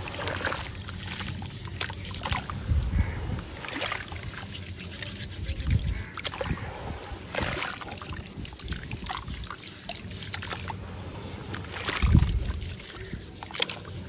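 Hands squeezing and churning wet, gritty sand slurry in a bowl of water: irregular squelching, sloshing and dribbling with small gritty crackles. A few low thuds as handfuls are pressed and dropped, the loudest near the end.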